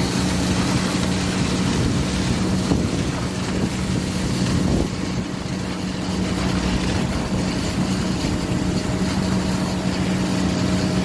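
Concrete pump's diesel engine running steadily under load, a constant low hum over a broad machine noise.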